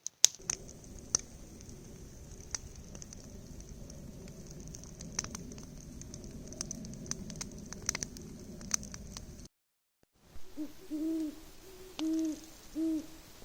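Campfire crackling with scattered sharp pops, then, after a cut, an owl hooting: a short series of low hoots.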